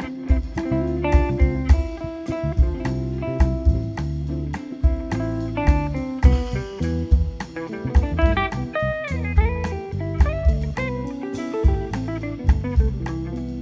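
Instrumental jazz-style quartet playing: a guitar melody over double bass, with a drum kit keeping a steady beat.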